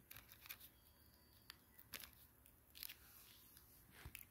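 Near silence: room tone with a few faint, short clicks and crackles scattered through it.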